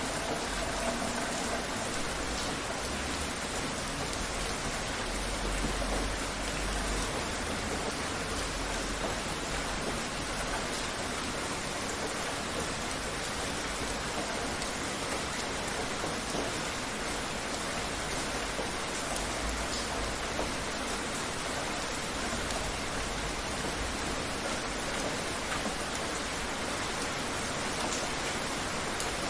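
Steady rain falling, an even hiss of many drops pattering on surfaces, holding a constant level throughout.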